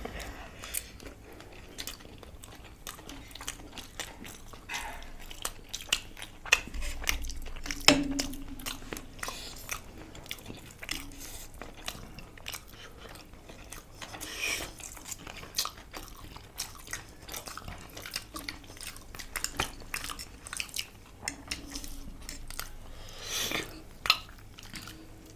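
Close-up eating sounds: crisp bites into a fried samosa and steady chewing, with scattered crunches and mouth clicks throughout.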